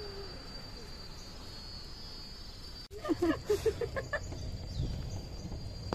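Insects buzzing with a steady high-pitched tone. About halfway through, short loud bursts of people's voices come in over a low rumble.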